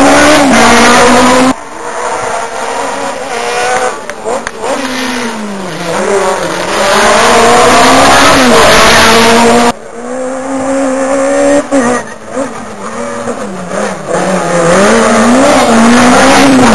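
Rally cars at full throttle passing close by, engines revving hard, their pitch climbing and dropping again and again. Loud enough to nearly overload the recording, with the sound breaking off suddenly a couple of times.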